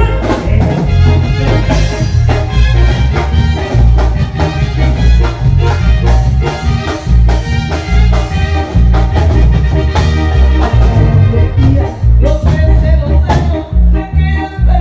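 A regional Mexican band playing live, loud and close: keyboards over a heavy pulsing bass and a steady drum beat.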